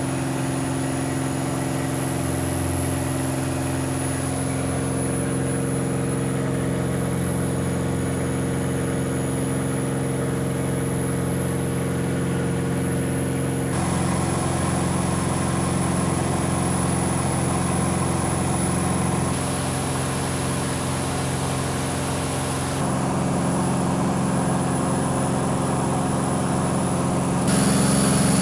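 Steady drone of a Cirrus single-engine piston airplane's engine and propeller in cruise flight, heard inside the cabin. The tone shifts abruptly about halfway through and again near the end.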